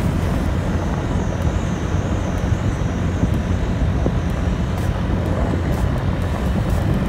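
Vehicle on the move: a steady low rumble of engine, tyres and wind noise.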